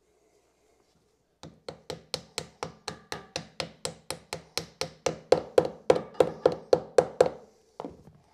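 Hammer tapping a wooden fillet down into the groove of a stair-rail shoe between metal balusters, seating it flush: a fast, even run of sharp knocks, about four a second for some six seconds, harder in the second half, then one more single knock near the end.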